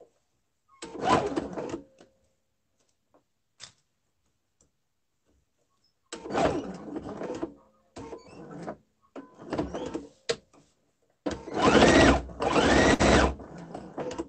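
Electric sewing machine stitching in several short runs with pauses between. Each run speeds up and slows down again, and the longest, loudest run comes near the end.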